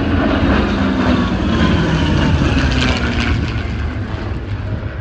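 Piston-engined warbird flying low past, its engine and propeller note loud and dropping in pitch as it goes by.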